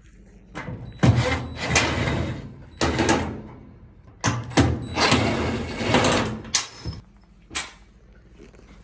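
Sheet-metal cabinet panels of a GE dryer being handled and slid apart: several long scraping, rattling sounds, then a few sharp metallic knocks near the end.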